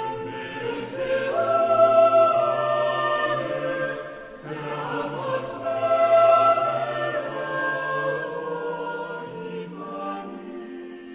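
Mixed chamber choir singing slow, sustained contemporary choral music in several parts. The voices swell to a peak about two seconds in and again about six seconds in, then fade away near the end.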